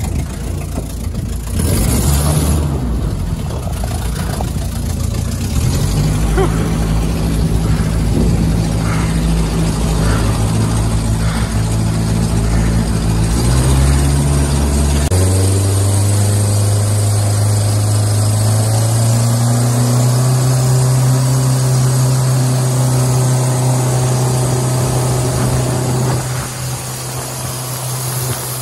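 Jet boat's Ford/Kodiak 2.4-litre inline-four engine driving a Hamilton 751 water jet, running under way with water rushing past the hull. About halfway through the engine speeds up to a steady higher pitch, rising once more a few seconds later.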